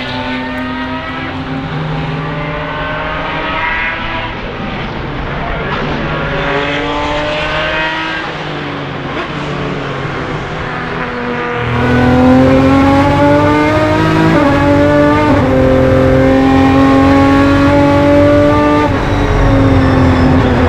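Ferrari 550 Maranello Prodrive race car's V12 engine accelerating hard, its pitch rising and dropping back at each gear change, several times over. It gets louder about halfway through.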